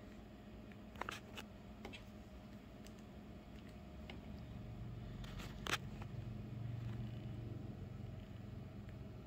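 Faint steady low room hum with a few light clicks about a second in and one sharper click a little past the middle, while a low rumble swells and fades in the middle.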